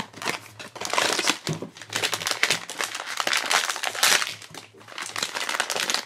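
Foil blind-box pouch and plastic wrapping crinkling and rustling as they are handled and pulled out of a cardboard blind box, in quick irregular crackles.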